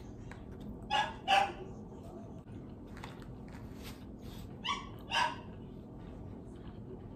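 A dog barking: two quick barks about a second in, and another pair about five seconds in.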